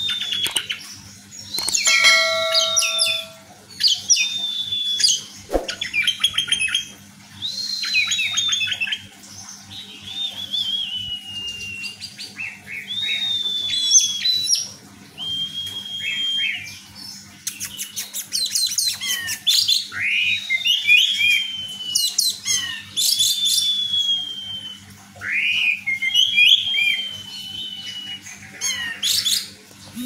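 Orange-headed thrush singing: a long run of phrases, one every second or two, each a falling whistle mixed with fast, scratchy chatter.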